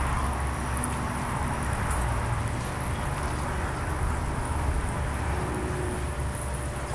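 Steady low rumble of distant traffic, with faint high ticks scattered through it.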